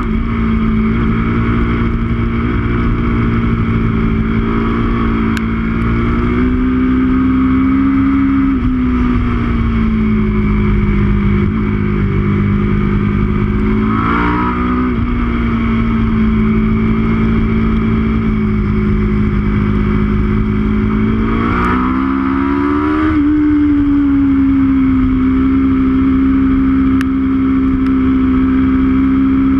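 Aprilia RSV4's V4 engine running hard, heard on board over steady wind rush; its note climbs and then drops sharply twice, about halfway through and again about two-thirds through, as gears change.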